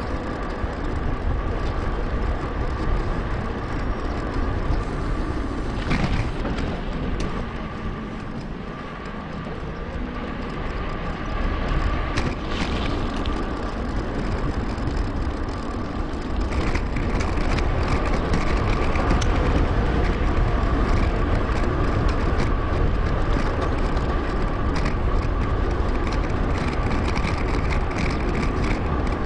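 Wind rushing on the microphone and tyre noise from a Merida Big.Nine 7000 hardtail mountain bike riding along, with a thin steady whine throughout and a few sharp clicks around six and twelve seconds in. The noise gets louder from about seventeen seconds in.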